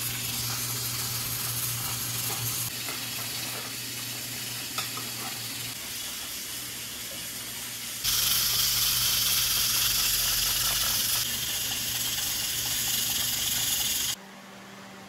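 Pressure cooker on a wood-fired stove hissing steam, with a few sharp crackles from the log fire. About eight seconds in the hiss grows louder and brighter, then it drops off suddenly near the end.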